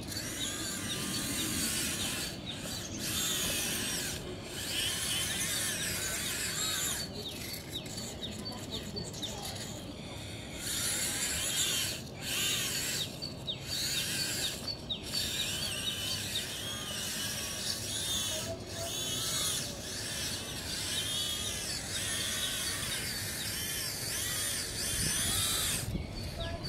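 Small electric drive motors and gearboxes of a motorised Bruder CAT compact loader model whining as it drives through sand. The whine rises and falls in pitch and breaks off briefly several times as the model stops and starts.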